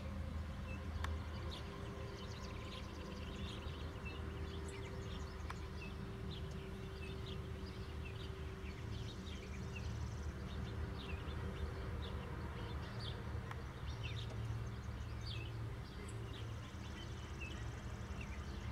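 Outdoor ambience: small birds chirping in short, high, scattered calls over a low steady rumble.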